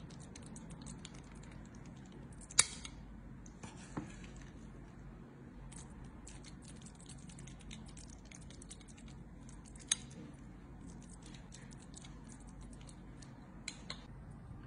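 A metal spoon clicking and scraping against a stainless steel ring mould and pan while spooning and pressing risotto into the mould, with two sharper metal clinks standing out.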